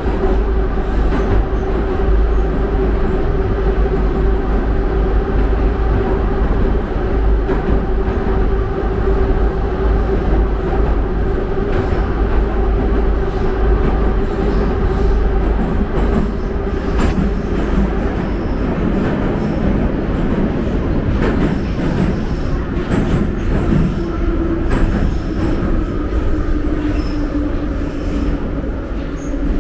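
Metro train heard from inside a moving carriage: a loud, steady running roar with a held whine. In the second half the wheels clatter and squeal, and over the last few seconds the whine falls in pitch as the train slows.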